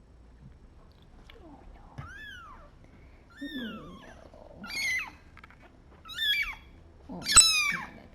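Orphan kitten, about three weeks old, mewing: a run of short, high, arching cries that grow louder and more frequent towards the end.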